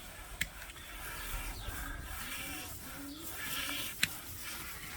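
Faint sheep bleating in a barn, with two sharp clicks, one about half a second in and one near the end.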